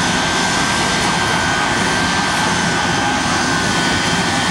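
Shockwave jet truck's Westinghouse J34 jet engines running steadily, not yet on afterburner: an even jet roar with a thin, high turbine whine.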